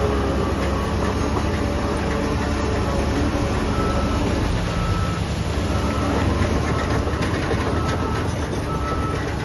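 Heavy diesel construction machinery running steadily, a deep engine drone with a rough clattering noise over it. Faint short beeps repeat about once a second from about four seconds in.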